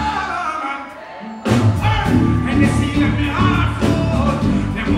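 Live dancehall performance: a male deejay chants into a microphone over a band. The bass and drums drop out for about a second and come back in about a second and a half in.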